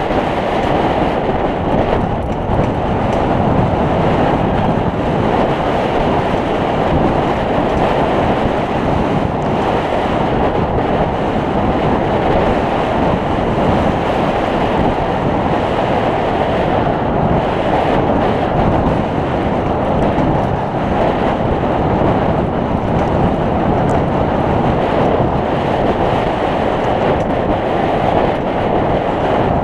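Loud, steady wind buffeting on the camera microphone mixed with the rumble and rattle of a mountain bike rolling fast down a dirt trail.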